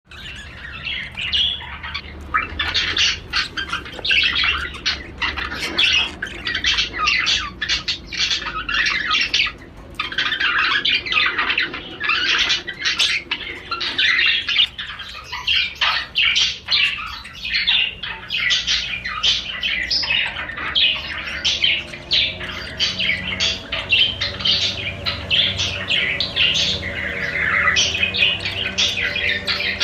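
Male budgerigar chattering and warbling nonstop in quick, varied chirps and squawks. In the later part a low steady hum runs underneath.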